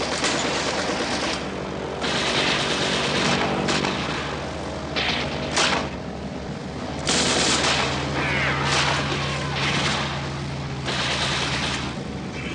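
Film battle sound: long bursts of automatic gunfire, one after another, over a steady low engine drone.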